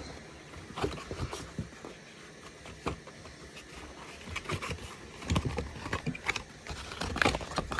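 A package being opened by hand: scattered scrapes, rustles and small clicks of handled packaging, busier in the second half.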